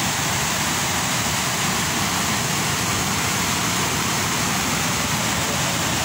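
Waterfall cascade: white water rushing over rocks, a loud, steady, unbroken rush of noise.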